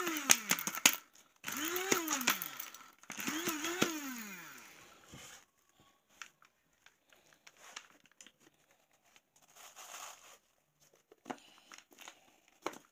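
Blender grinding dried rose petals into powder, run in short pulses: three runs in the first five seconds, each speeding up and then winding down. Faint clicks and knocks follow.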